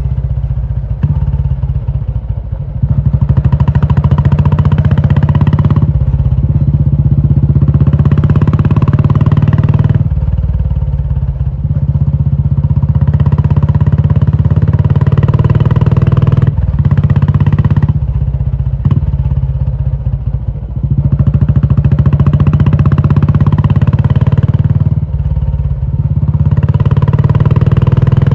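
Royal Enfield Classic 350's single-cylinder engine running through a loud aftermarket Indore exhaust. The throttle is opened and rolled off over and over, so the exhaust note rises and falls several times.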